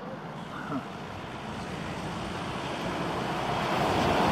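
A car on the road approaching, its tyre and engine noise growing steadily louder.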